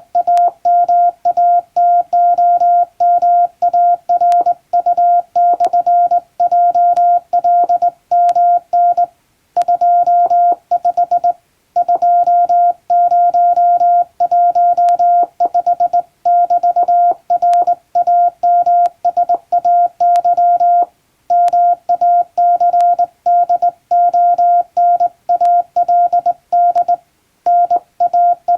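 Morse code sent by hand on a JRC (Japan Radio Co.) telegraph key, heard as a steady mid-pitched beep keyed on and off in quick dots and dashes, with short pauses between words. It is an English-language telegram sent as code practice.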